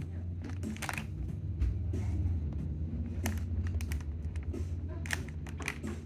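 Clear plastic packaging crinkling and crackling in small hands as a toy ketchup bottle is handled and pushed into the bag, a string of irregular sharp crackles over a steady low hum.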